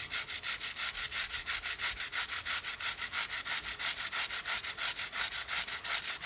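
Stiff chain cleaner brush scrubbing a degreaser-soaked motorcycle drive chain in fast, even back-and-forth strokes, a hissy rubbing that scours grime off the chain.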